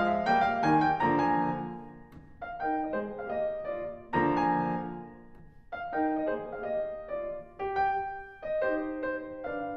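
Background piano music playing melodic phrases, with fuller, louder chords at the start and about four seconds in.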